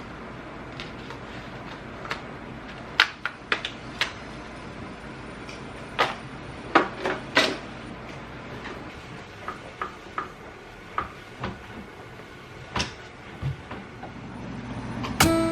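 Scattered knocks and clicks of household items being handled and set down, a few with a short ring, over a faint steady background. Music comes in at the very end.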